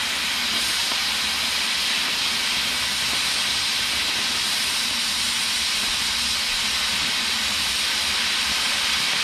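Oxy-fuel cutting torch hissing steadily as it cuts a hole through a thick steel forklift fork, throwing sparks.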